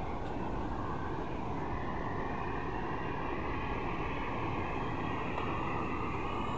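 Steady rushing roar of Dassam Falls, an even noise with no separate events.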